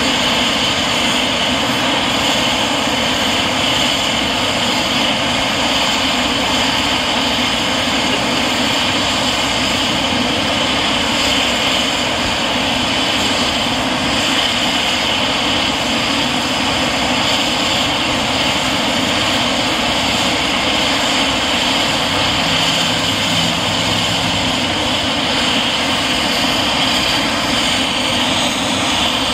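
Leonardo AW139 helicopter on the ground with its twin turboshaft engines running and main rotor turning: a steady, loud turbine whine over rotor noise.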